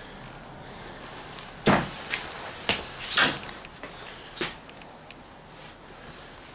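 About half a dozen irregular knocks and thumps over a few seconds, the loudest two a second and a half apart, over a faint steady hiss.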